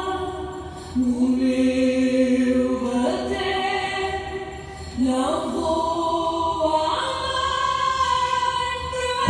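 Recorded Portuguese song with female vocals. Each note is held long, and a new phrase starts about every two seconds.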